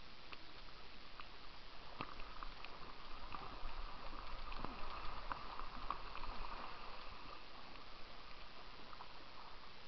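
Kayak paddle working the river water close by: splashing and dripping off the blade with scattered small clicks and knocks, busiest and loudest in the middle few seconds.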